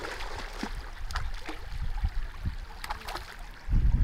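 Shallow river water sloshing and splashing lightly, with a few short, sharper splashes. A loud low rumble comes in near the end.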